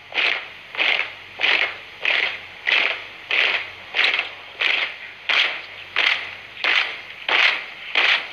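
A formation marching in step with the firm stamping step, many boots striking the ground together about one and a half times a second in a sharp, even rhythm.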